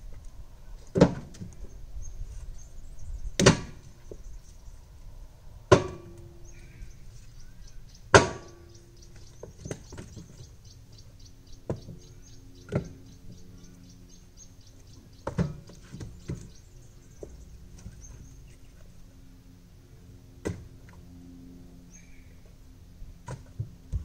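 Split firewood logs thrown by hand one at a time into a backhoe's front loader bucket, each landing with a sharp wooden clunk on the load. The first four throws are the loudest, and lighter knocks follow every second or few seconds.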